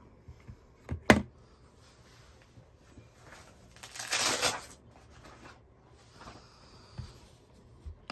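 Handling noise: a sharp knock about a second in, a brief rustle around four seconds, and a couple of faint taps near the end.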